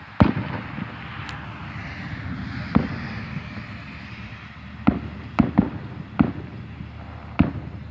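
Fireworks going off: seven sharp bangs at irregular intervals. The first, right at the start, is the loudest, and several follow close together after about five seconds, over a steady background hiss.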